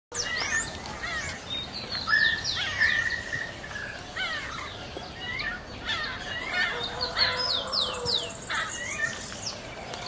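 A mixed chorus of wild birds of several species singing and calling over one another: many quick down-slurred whistles and chirps, with a few longer held notes.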